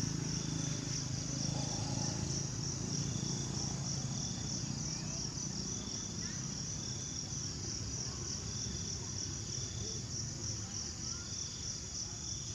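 Chorus of insects buzzing steadily in a high, pulsing drone. A fainter tone repeats about every two seconds, over a low rumble.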